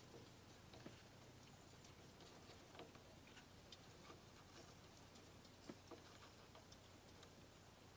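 Near silence with faint, scattered clicks: a screwdriver turning the worm screw of an intake-pipe hose clamp, snugging it down.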